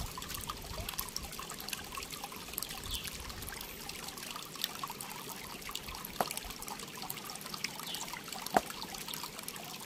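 Water trickling steadily, with a couple of sharp clicks partway through.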